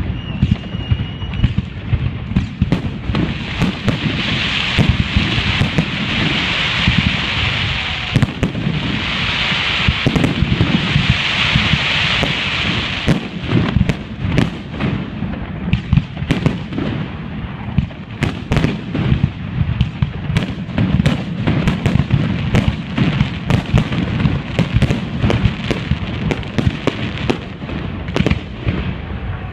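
Fireworks display: a dense, continuous barrage of shell bursts and bangs, with a loud hiss over the bangs from about 3 to 13 seconds in.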